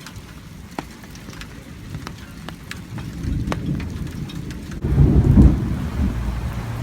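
Torrential thunderstorm rain, with many drops striking close by. A low rumble of thunder builds and is loudest about five seconds in, followed by a steady low roar of downpour.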